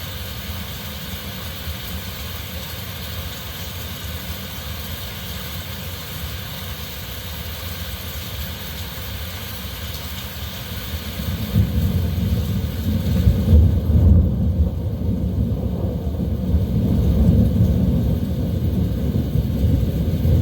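Steady hiss of heavy rain with a low wind rumble beneath. About halfway through a deep gusting wind rumble swells and grows louder, and the higher rain hiss fades back.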